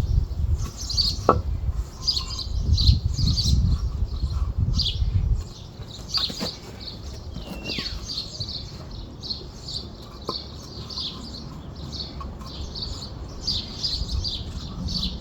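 Small birds chirping over and over, a couple of short chirps a second. A low rumble runs under the first third, and a few sharp knocks come about a second in, near the middle and again a few seconds later.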